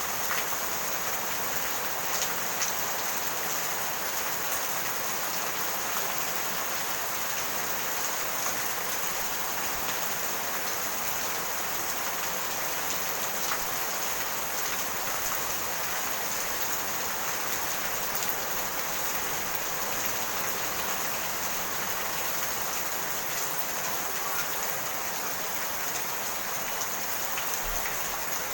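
Steady rain falling, an even hiss with a scatter of faint drop ticks.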